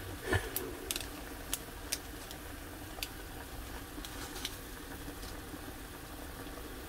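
Pot of ramen water at a rolling boil: a steady bubbling rumble, with scattered sharp little clicks and pops through it.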